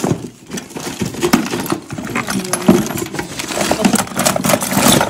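Loose plastic PVC and copper pipe fittings clattering and clinking in a plumber's toolbox as a hand rummages through them, in a steady run of short knocks and rattles.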